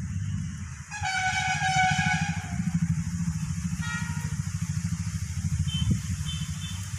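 A vehicle horn sounds for about a second and a half, starting about a second in, with a shorter beep near the middle, over a steady low engine rumble.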